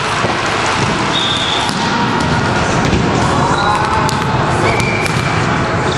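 Volleyballs being struck and bouncing on a sports hall floor, scattered sharp smacks in a dense, echoing din, with players' voices in the background.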